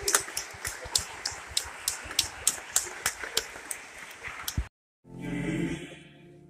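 A congregation clapping, irregular hand claps that cut off abruptly about four and a half seconds in. After a short gap, music with sustained notes begins.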